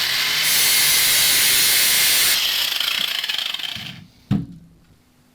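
Grinder grinding down a steel nut to sharpen it to a point: a loud, steady grinding hiss over a low motor hum that stops about four seconds in, followed by a single knock.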